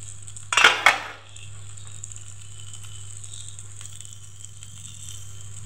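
Brinjal pieces sizzling in a little oil in a frying pan, a steady hiss. A short double clatter sounds about half a second in, and a fork gives a few light taps as it turns the pieces.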